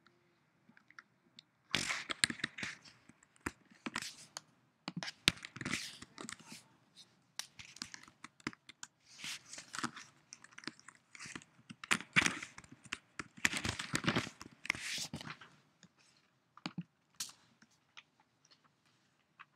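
Typing on a computer keyboard close to the microphone: rapid runs of key clicks and clatter in bursts, thinning to a few single clicks near the end.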